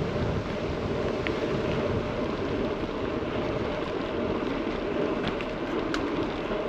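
Wind rumbling on the microphone while riding a bicycle, a steady low noise with a few faint clicks.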